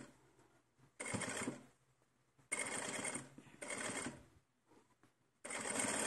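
Sewing machine stitching a seam in short runs: several bursts of under a second each, with brief pauses between, the last run starting near the end.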